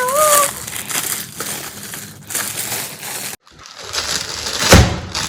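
Gift wrapping paper being torn open and crumpled by hand, an irregular rustling and crackling with a loud sharp burst near the end.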